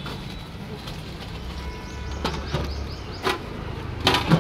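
Busy street-food stall ambience: a steady low traffic hum, with a few sharp clinks of steel serving ladles and pots in the second half.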